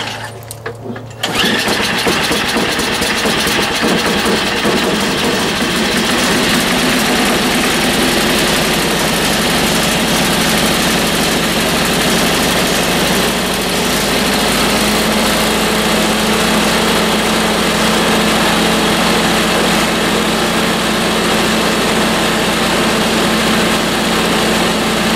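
Craftsman 5/22 snowblower engine cold-started on its freshly cleaned and rebuilt carburetor: it catches about a second in and then keeps running steadily.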